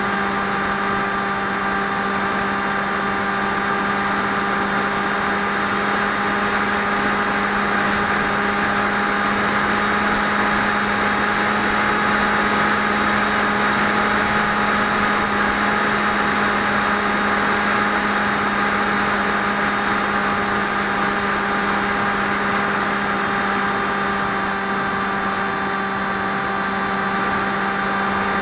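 Electric motor and propeller of a Swift 2 FPV flying wing at steady throttle, a constant buzzing hum with a hiss of rushing air, heard from the onboard camera.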